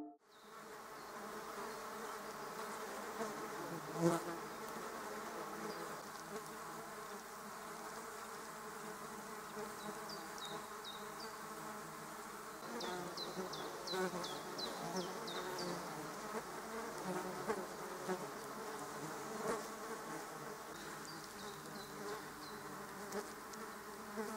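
Flies buzzing steadily around the microphone, with runs of short, high, falling chirps from a bird in the middle and again near the end. A single thump about four seconds in.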